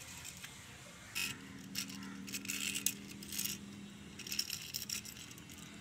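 A die-cast toy race car pushed by hand along a concrete floor, its small wheels scraping and clicking in several short bursts, with a faint low hum behind.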